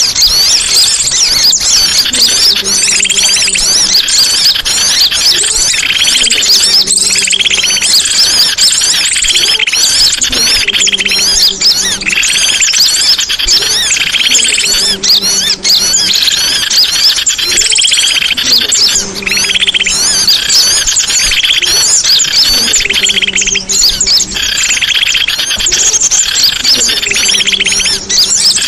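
Songbirds chirping and twittering densely without a break, with a low two-note figure that comes back about every two seconds.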